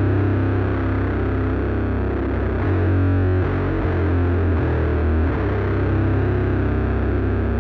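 Multitrack rock song playing back through a mix of distorted electric guitars, bass and drums, with strong bass notes that change every second or two.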